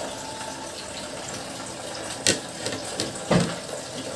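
Knife and plate clacking and knocking on a table as fish balls are handled for slicing: a sharp clack about two seconds in, a light tap, then a heavier knock, over a steady hiss.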